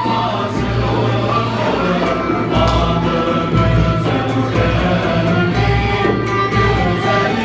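A male choir singing together over a Turkish traditional ensemble of oud, kanun, flute, violin and a frame drum that beats a steady pulse.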